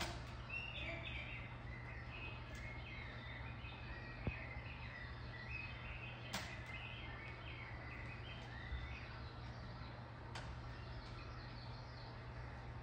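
Looped field recording of birdsong, many short chirps and warbles, played back over a steady low hum. A few sharp clicks sound from the tape gear.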